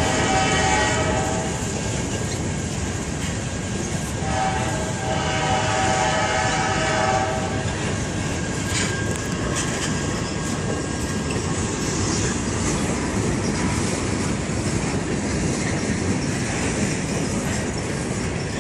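Freight train passing: the locomotive's air horn sounds twice, a short blast and then a longer one about four seconds in, over the steady rumble and clickety-clack of covered hopper cars rolling by on the rails.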